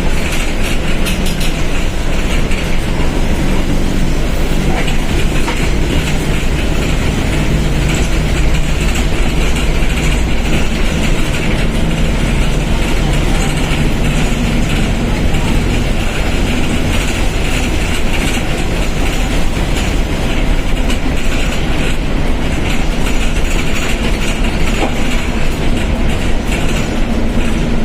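Diesel engine of a Mercedes-Benz OF1721 BlueTec 5 bus running while the bus drives, a steady rumble with the engine note rising and falling a few times, under constant rattling of the bodywork.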